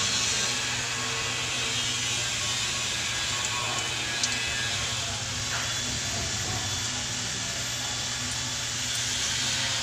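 A steady mechanical hum with an even hiss over it, as from a machine or fan running. A faint light click comes a little over four seconds in.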